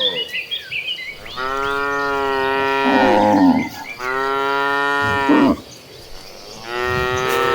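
Cattle mooing: three long, drawn-out calls one after another with short pauses between them. Small bird chirps sound in the first second.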